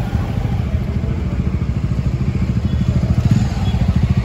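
Motorcycle engine running close by in street traffic, a fast steady low pulsing that grows a little louder in the second half.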